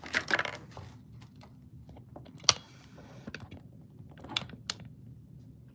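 Marcolo Comet balisong being flipped: irregular sharp metallic clicks and clacks as the handles swing and strike closed and open, the loudest about halfway through.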